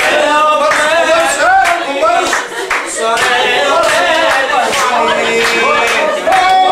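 Voices singing a dance song unaccompanied, with hand claps keeping time.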